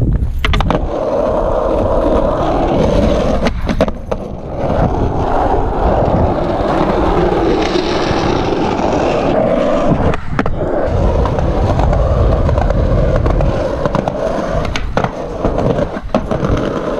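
Skateboard wheels rolling over asphalt and concrete pavement, a continuous gritty rumble, with a few sharp clacks along the way.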